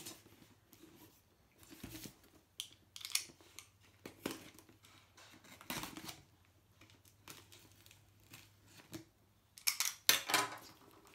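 Small knife slitting the packing tape on a small cardboard box, irregular short scrapes with tape and cardboard tearing. A louder run of tearing comes about ten seconds in.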